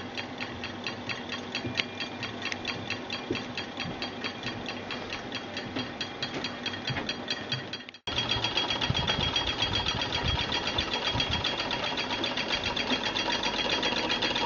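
Model Stirling hot-air engines running, their linkages ticking in a rapid, even rhythm. About eight seconds in there is a sudden break, and the ticking comes back louder and denser as several of the small engines run together.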